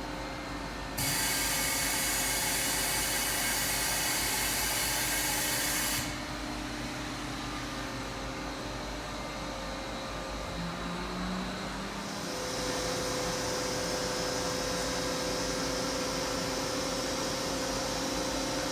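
Doosan Lynx 300 CNC turning center running under power: a steady machine hum with several held tones. A loud hiss cuts in about a second in and stops abruptly about five seconds later, and near twelve seconds a steadier, higher hiss and a stronger hum set in.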